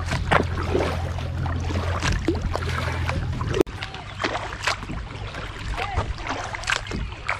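Kayak paddling: the paddle blades dip and splash in the water in a run of short, uneven strokes with drips between them. A steady low hum runs under the first half and cuts off suddenly a little past halfway.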